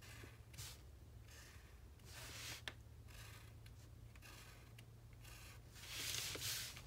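Felt-tip marker drawing on paper: a faint run of short strokes, about one a second, as thick black lines are filled in. The loudest sound is a longer rub about six seconds in, as the paper is slid across the table.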